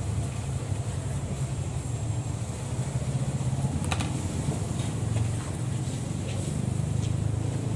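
A steady low mechanical hum, with a sharp click about four seconds in.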